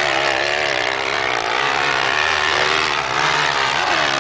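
Honda motocross bike engine revving hard on the sand track, its pitch rising and falling with throttle and gear changes.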